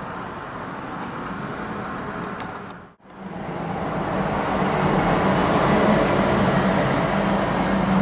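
Steady road-traffic noise. It cuts out for a moment about three seconds in, then comes back louder with a low, steady hum.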